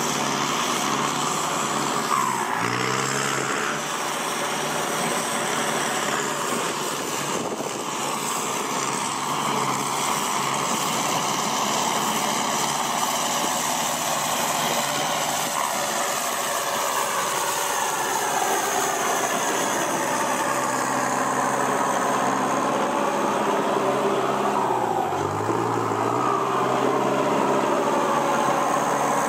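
Kubota M6240SUH tractor's turbodiesel engine running steadily through a new aftermarket exhaust pipe. Its pitch dips briefly and recovers twice, about two seconds in and again near the end.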